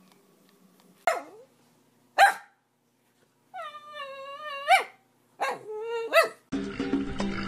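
Black-and-tan dachshund barking twice, then giving a long wavering whine-howl that rises at its end, followed by a shorter one. Music comes in about a second before the end.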